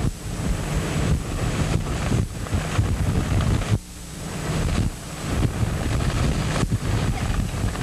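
Strong wind buffeting the video camera's microphone in gusts, the rumble strongest in the lows, easing briefly a little under four seconds in.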